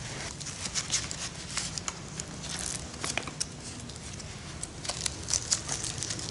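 Plastic cervical collar crinkling and rasping as it is slid under a mannequin's neck and its strap is fastened, in irregular bursts of crackles and scrapes.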